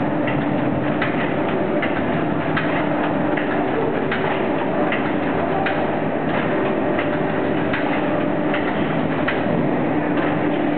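Siebeck FRT-S MKII meat-tying machine running with a steady mechanical hum and a sharp click about every three quarters of a second as a meat roll is fed through it.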